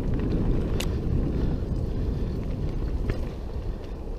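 Wind rushing over the camera microphone mixed with mountain bike tyres rumbling over a dirt trail at speed, with a couple of short sharp clicks.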